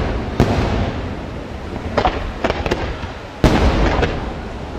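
Aerial fireworks display: shell bursts going off over a steady crackle and hiss, with a few sharp bangs and the loudest bang a little after three seconds in, followed by a low rumble.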